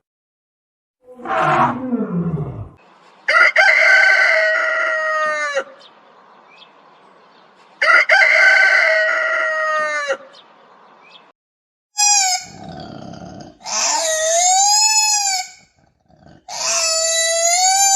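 Animal calls: a short falling call, then four long calls with a clear pitch, the first two alike and the last two rising and falling in pitch.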